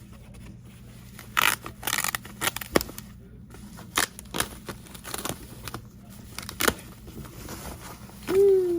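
Cardboard and plastic packaging being cut open and handled: scattered scrapes, rustles and clicks. Near the end, a short pitched whine begins and falls in pitch.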